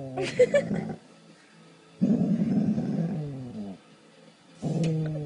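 A pet dog growling in three long grumbles, each sliding down in pitch, the middle one rougher; the dog is grumbling at the puppies on the television.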